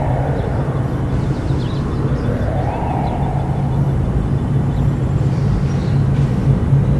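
Distant Federal Signal Modulator 1004 outdoor warning siren, faint, sweeping slowly up and down in pitch about every three seconds. It sits under a louder, steady low rumble.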